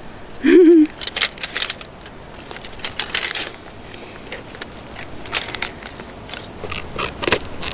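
Metal kitchen tongs clinking and rattling against each other in a fabric utensil case as they are handled and sorted, in scattered clusters of light clicks.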